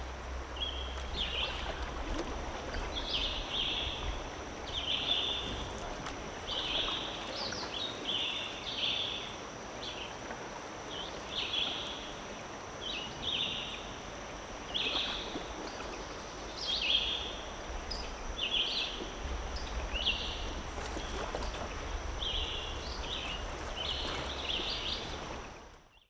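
Songbirds giving short, high phrases again and again, one every second or two, over the steady rush of a river riffle. It all fades out at the very end.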